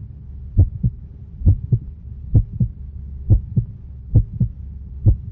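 Heartbeat sound effect: paired low thumps, a little more than one pair a second, over a steady low hum.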